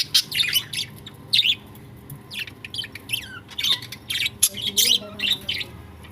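Budgerigars chattering: quick runs of short, sharp chirps and squawks, with a brief lull about two seconds in and fewer calls near the end.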